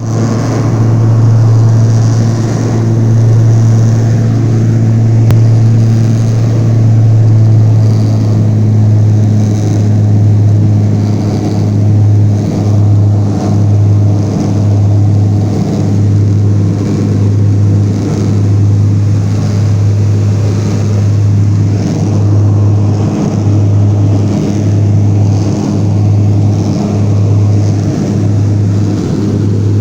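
A motor running with a loud, steady low hum. From about twelve seconds in, the hum keeps cutting out briefly, roughly once a second.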